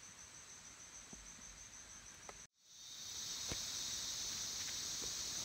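Forest insects calling, high-pitched: at first a faint chirping that pulses about four times a second. After a brief dropout about halfway, a louder, steady high buzzing chorus takes over, with a few faint clicks.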